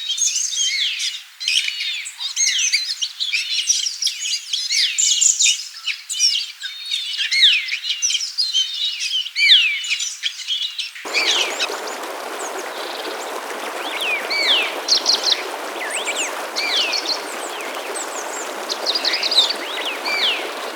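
A dense chorus of small birds chirping and twittering, many quick calls overlapping. About halfway through it cuts abruptly to a steady rush of flowing stream water, with fewer bird calls over it.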